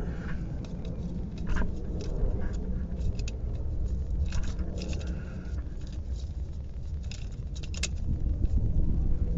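Wrench on a new oil filter giving short, irregular metallic clicks as the filter is tightened, over a steady low rumble.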